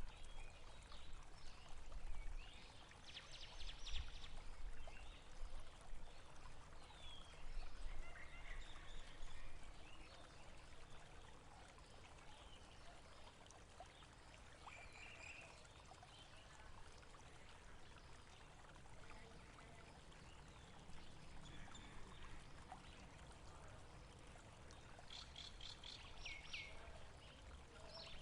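Running water, a steady rushing flow, with birds chirping now and then: a quick run of high notes about three seconds in and another near the end.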